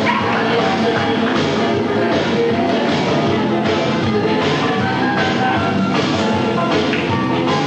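Music: a rock track with drum kit and guitar, playing at an even level.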